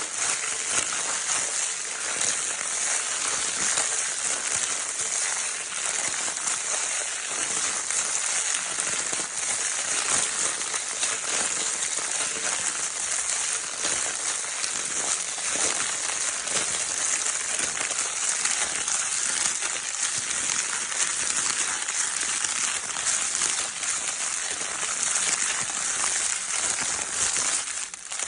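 Crinkle paper in a baby's crinkle toy being scrunched and rustled without pause, a dense, steady crackling.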